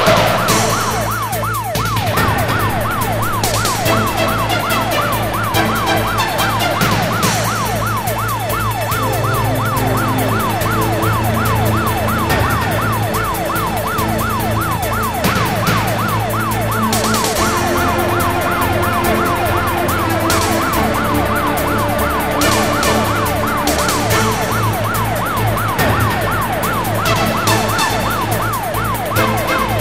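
Police car siren in a fast yelp, its pitch sweeping up and down several times a second without a break.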